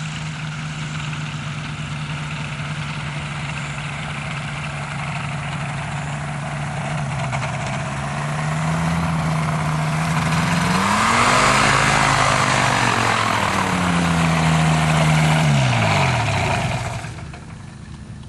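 Rotax 447 two-cylinder two-stroke engine and pusher propeller of an ultralight trike taxiing closer, growing louder. Near the end the engine is shut off and winds down to a stop.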